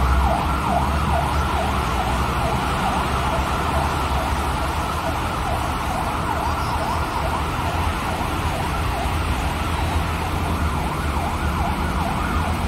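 Fire engine sirens on a fast, repeating rise-and-fall yelp, over the low rumble of the trucks and a steady hiss of rain on a wet road.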